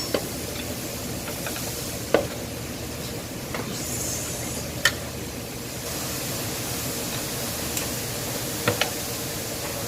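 Steady hiss with a faint low hum, broken by a handful of sharp metallic clicks and taps spaced a few seconds apart: hand tools knocking against engine parts during a teardown.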